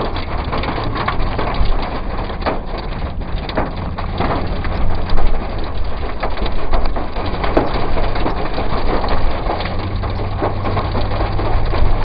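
Heavy storm precipitation drumming on a car's roof and windscreen: a dense, uneven patter of sharp hits over the steady low hum of the car's engine.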